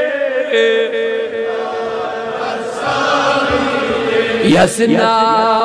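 A man's voice chanting a Kashmiri devotional refrain in long held notes.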